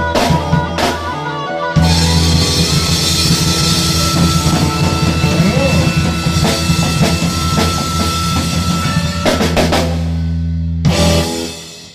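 Blues-rock band music with a drum kit and guitar. It gets louder about two seconds in, and near the end a final hit rings out and fades away as the song ends.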